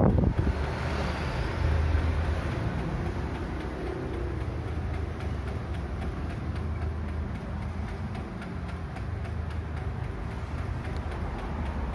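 Old four-bladed Maspion F-160S stand fan running: a low motor hum and the rush of air from the blades, with a light regular ticking, which the owner ties to its oscillation no longer working.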